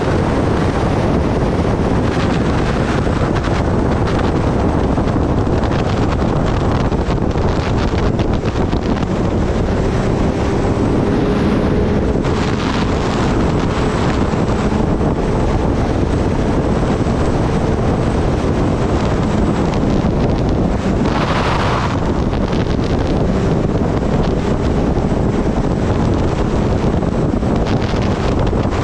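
Wind rushing over the microphone of a Kawasaki Ninja ZX-10R ridden at steady highway speed, with the bike's inline-four engine running underneath at a steady pitch. A brief louder swell of hiss comes about three-quarters of the way through.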